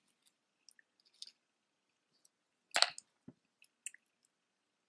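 Faint scattered clicks and ticks of a thin metal necklace chain and its clasp being handled between the fingers, with one louder click about three seconds in.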